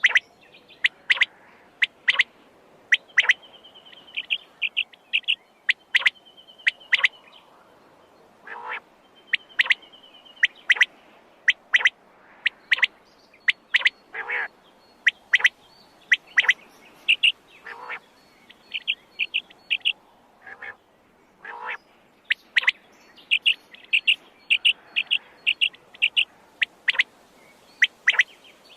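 Quail calling over and over: short, sharp calls, often in quick runs of several, mixed with a few rapid trills and some longer, lower calls.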